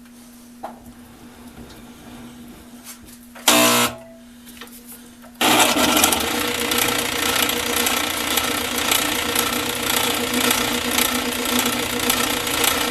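A workshop machine's electric motor switches on about five seconds in and runs steadily with a dense whirring noise and a constant hum. Before it, a faint steady hum and one short, loud pitched blip.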